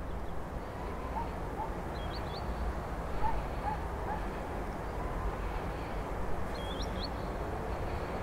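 Park ambience: a steady low background rumble, like distant traffic, with scattered short bird chirps, including two quick high pairs, one about two seconds in and one near the end.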